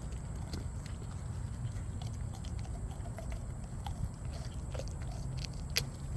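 A goat chewing and biting carrots: scattered crisp crunches, with one sharper snap near the end.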